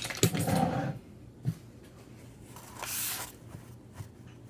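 Fork and plate clinking and clattering as food is handled, followed by a single knock and then a short breathy hiss.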